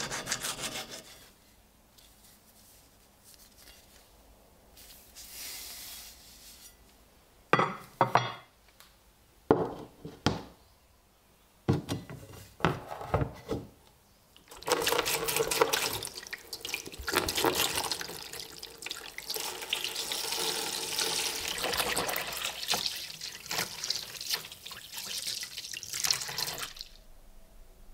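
A file rasps briefly in the bayonet's grip slot, then a metal bayonet knocks several times against a plastic tub as it is set down. Liquid then pours into the tub over the blade with a steady splashing and rushing for about twelve seconds, stopping suddenly near the end.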